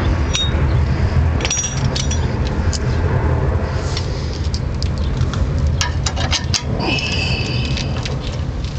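Metal hand tools and sway bar link parts clicking and clinking as the link is fitted, in irregular clusters with some brief high metallic ringing, over a steady low rumble.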